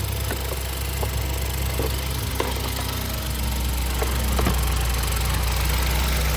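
2016 Ford Focus ST's four-cylinder engine idling steadily just after a jump-start from a flat battery, with a few light clicks over it.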